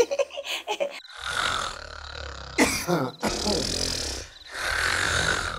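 A man snoring loudly in long noisy breaths, each with a low rattle beneath, and a sharper snort about two and a half seconds in.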